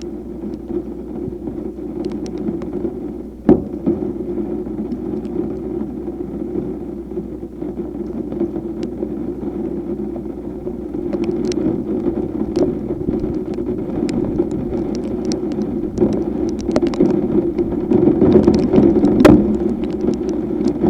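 Steady low drone of a vehicle with scattered sharp taps that come more often toward the end, and one loud knock about three and a half seconds in.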